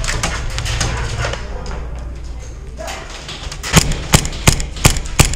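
Airsoft pistol fired about five times in quick succession, sharp cracks roughly three a second in the last couple of seconds. Before them comes a busy stretch of rustling and clatter.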